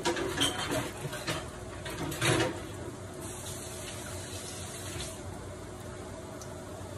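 Fish patties sizzling in oil in a frying pan: a steady sizzle, with a few louder crackles in the first couple of seconds and a faint steady hum underneath.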